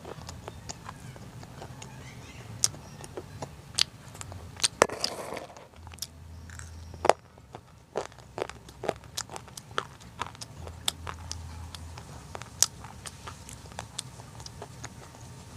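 Crunchy food being bitten and chewed: irregular sharp crunches and cracks, several a second at times, with a short rustling burst about five seconds in.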